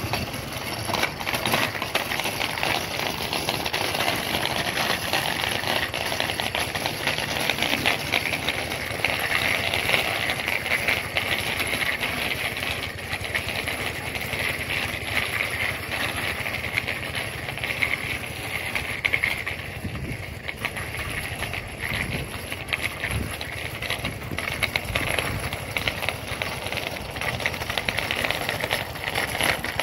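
Child's bicycle with training wheels rolling and rattling over a paved road: a dense run of small clicks and clatter.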